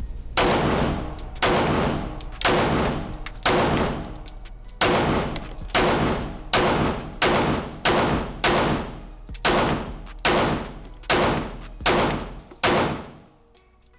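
A handgun fired in a steady string of about fifteen shots, roughly one a second, emptying a 15-round magazine. Each shot is followed by a short echo, and the shooting stops a little before the end.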